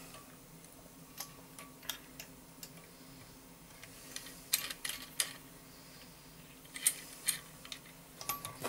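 Metal valve spring compressor tool and its adapter rings clinking and tapping against an aluminium cylinder head as they are lifted out and set over another valve: scattered light clicks, with louder clusters about halfway through and near the end.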